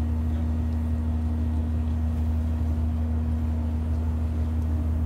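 Steady low drone of marine engines, with a constant humming tone above the deep rumble and no change in level.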